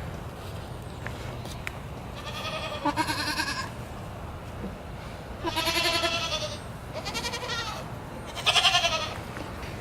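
A goat bleating four times in separate, quavering calls.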